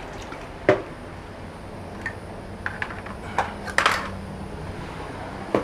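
A few sharp clacks and knocks of hard plastic: PVC pipe pieces and fittings being handled and set down, with a cluster of clatter about four seconds in.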